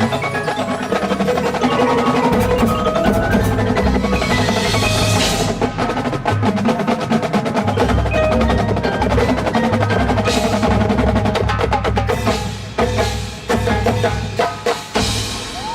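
Marching band playing, led by the percussion: drums with mallet percussion such as marimba and bells. In the last few seconds the music breaks into separate accented hits.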